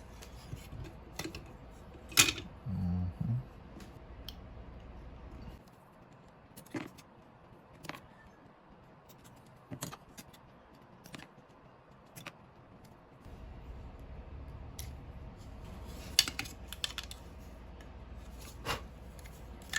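Scattered clicks and taps of small plastic parts and screws being handled while fitting the tank and cowl set of a Kyosho HOR RC motorcycle kit. A faint low hum underneath drops out for several seconds in the middle.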